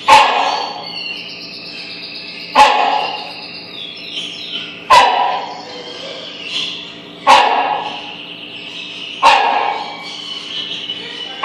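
Rhinoceros hornbill barking: five loud, sharp barks about every two and a half seconds, each with a short echo.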